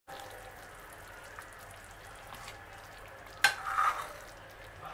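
Tomato-onion gravy with koftas bubbling at the boil in a metal pan, a steady soft fizz. About three and a half seconds in, a ladle clinks once against the pan and stirs briefly.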